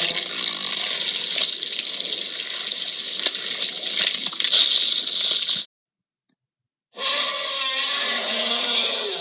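Monster-film sound effects: a loud, steady hissing rush cuts off suddenly after about five and a half seconds, and after a second of silence a rougher, breathy sound starts.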